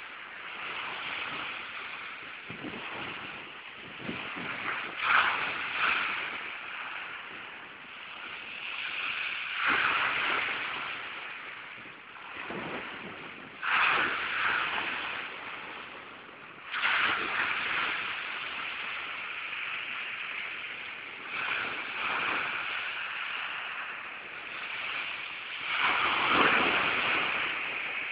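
Sea waves breaking and washing up a shingle beach, the surf swelling into a louder surge every few seconds, some surges hitting suddenly, with foam hissing between them.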